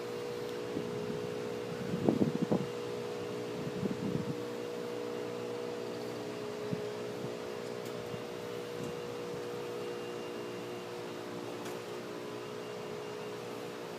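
A steady mechanical hum made of several fixed tones, with a few brief bumps about two seconds in and again about four seconds in.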